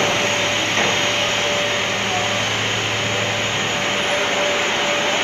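PUR glue laminating and pressing line for sandwich door panels running: a steady, even mechanical hum of motors and fans, with a constant tone held throughout.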